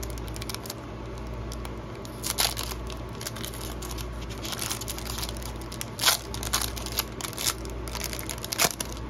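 Foil wrapper of a Chronicles Football trading-card pack crinkling and tearing as it is ripped open by hand, a run of dry crackles with a few sharper, louder ones.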